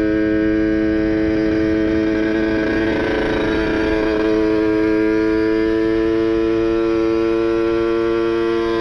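Kawasaki Ninja RR's ported two-stroke engine with a PWK 30 carburettor and ABRT20 exhaust, running at steady held revs, its pitch creeping slightly upward over the second half.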